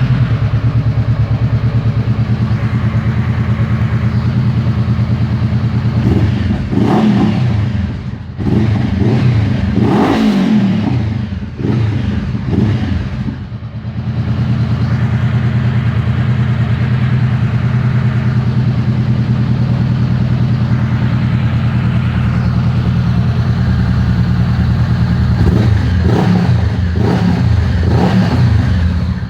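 Honda CB 500F parallel-twin engine running through a Coyote Boca 8 aftermarket exhaust, idling steadily just after start-up and blipped with several quick revs, a cluster about a quarter of the way in and another near the end. The sound echoes inside a garage.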